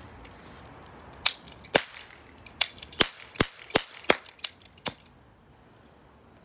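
Toy revolver firing nine sharp shots, puffing smoke: two shots half a second apart, then the rest at about three a second.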